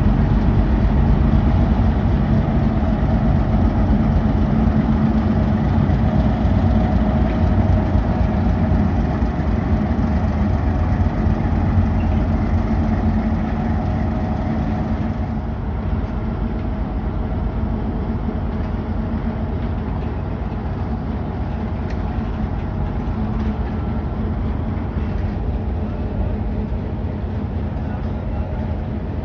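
Diesel locomotive engine running steadily with a low rumble and a steady hum. It gets a little quieter about halfway through.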